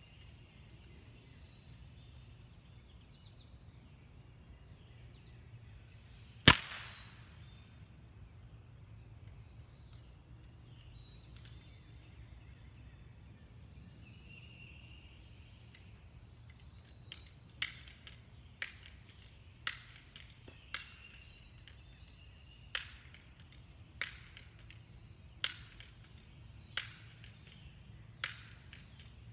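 Crosman 1377 multi-pump air pistol fired once, a single sharp crack about six seconds in. Later, about ten clicks roughly a second apart as the pump lever is worked to charge the gun for the next shot. Faint birds chirping in the background.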